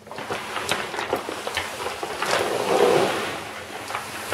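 Brown paper shopping bag crinkling and scraping as it is dragged across a rug with a cat sitting in it, with sharp paper crackles all through, loudest about three seconds in.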